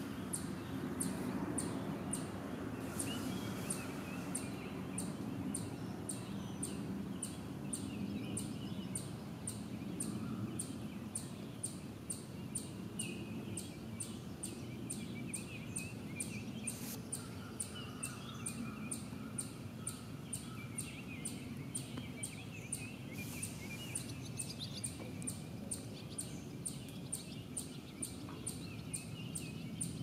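Outdoor lakeside ambience: birds calling and singing now and then over a steady low background hum, with a high, thin chirp repeating about twice a second all along.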